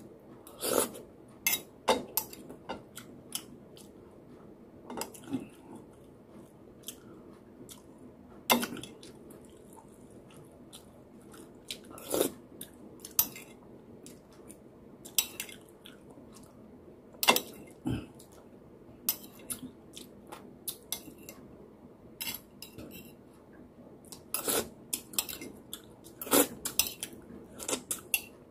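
Metal spoon clinking and scraping against a ceramic plate in sharp, irregular clicks every second or so, with chewing in between.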